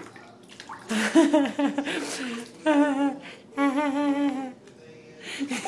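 Wordless human voice: three drawn-out hums or coos, the last two wavering quickly in pitch.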